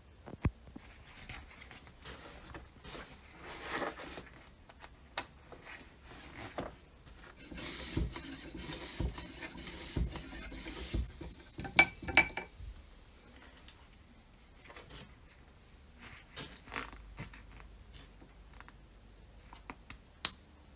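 Metal parts of an old hand air pump being handled on a bench: scattered clicks and rubs, a stretch of hissing scraping about a stroke a second in the middle, and a few sharp ringing metal clinks.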